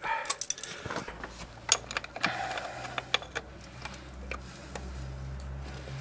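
Metal tools clinking and rattling as a spanner is handled and fitted onto a motorcycle's rear axle nut: a string of short sharp metallic clicks. A low steady hum runs under them from about a second in.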